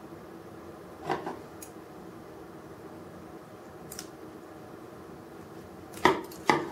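Small clicks and taps of diecast metal model-crane parts being handled and worked apart, a few scattered ticks, then two sharper knocks near the end, over a faint steady hum.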